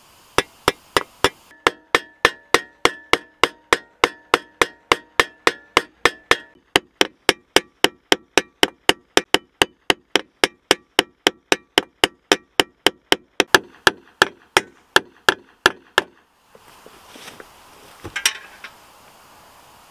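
Small hammer tapping steadily along the edge of a scythe blade, peening it: about three metal strikes a second, each with a short ring. The tapping stops about 16 seconds in, followed by a rustle of handling and a single scrape.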